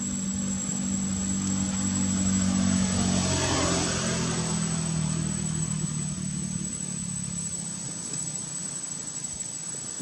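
A motor vehicle's engine passing by, loudest about three to four seconds in, its pitch dropping a little as it goes past, then fading away.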